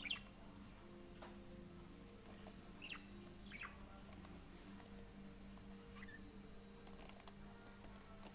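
A budgie giving a few soft, short chirps, one right at the start, two about three seconds in and one about six seconds in, with faint clicks between them.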